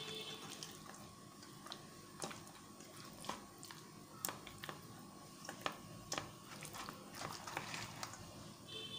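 Fish steaks being squeezed and turned by hand in a thick, wet masala paste in a stainless steel bowl: faint squelching with irregular light clicks.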